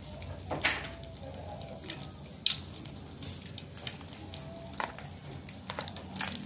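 Egg-coated potato fritters (perkedel) sizzling steadily in hot oil in a wok, with scattered crackles and a few sharp clicks.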